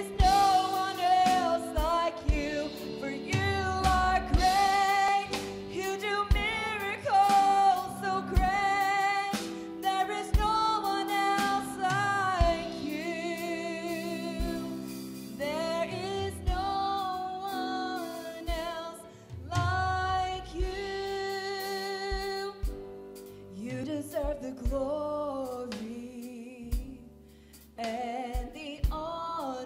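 Live gospel worship music: a woman singing held, wavering notes over piano, guitars and a drum kit, with the drums dropping back near the end.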